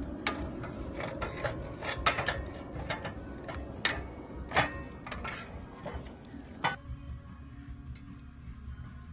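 Irregular metal clinks and knocks from handling the homemade crucible of molten aluminium and its tools, over a low rumble. The knocks stop about seven seconds in and it goes quieter.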